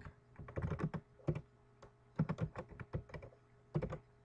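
Computer keyboard keys clicking as text is typed, in several quick irregular runs of keystrokes with short pauses between them.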